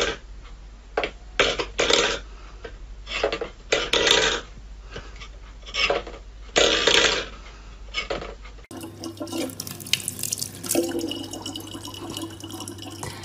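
A steel food bowl clattering and scraping on a wooden floor as a cat paws at it, in irregular bursts. About eight and a half seconds in, it gives way to a thin stream of tap water running steadily into a plastic bottle, with a low hum under it.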